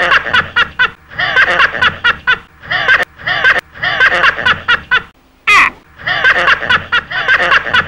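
A person laughing loudly in repeated bouts of rapid 'ha-ha' pulses, with short breaths between bouts.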